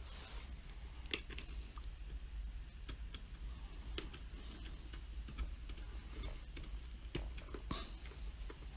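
Scattered light clicks and small scrapes as a small cover piece is worked by hand onto the drive stem of an Osterizer blender's motor base, with a few sharper clicks about a second in, about four seconds in, and a quick cluster near seven seconds.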